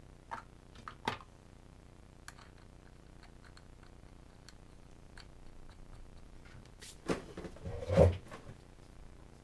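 Scattered small clicks and knocks of parts on a chainsaw's top being handled and fitted by hand, with a short clatter ending in a louder thump about eight seconds in.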